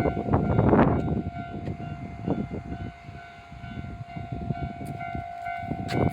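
Train passing a railway level crossing: a rumbling run of wheel noise, loud at first, easing off midway and swelling again near the end, with a steady high tone held over it.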